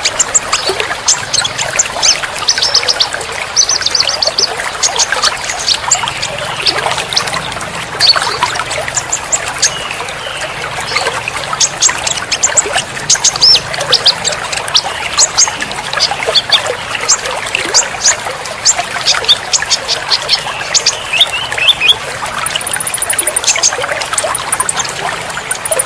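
Many small songbirds chirping and trilling rapidly and densely over a steady trickle of running water. This is a bird-therapy recording made to coax caged birds that have gone quiet back into song.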